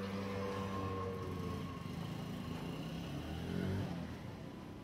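A motor vehicle's engine running close by: a steady low hum that rises in pitch and swells about three and a half seconds in, then eases off.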